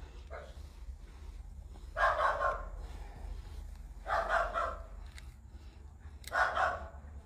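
A dog barking, three double barks about two seconds apart, over a low steady hum.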